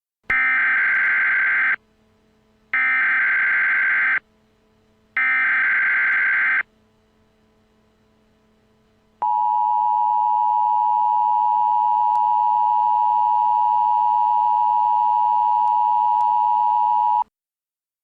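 Emergency Alert System tones: three short bursts of warbling SAME header data, each about a second and a half long with a short pause between them. After a few seconds of silence comes the steady two-tone EAS attention signal, held for about eight seconds and cutting off sharply.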